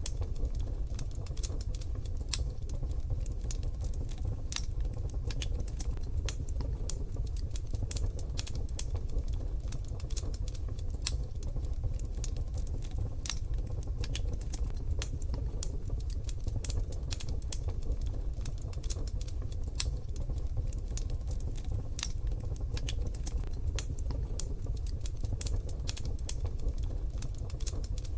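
Wood fire crackling in a wood-burning stove: irregular sharp pops and snaps, several a second, over a low steady rumble of the burning fire.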